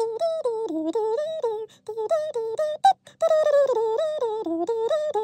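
A high, chipmunk-like voice singing a tune, its notes stepping up and down in pitch with short glides between them. A faint steady hum sits underneath.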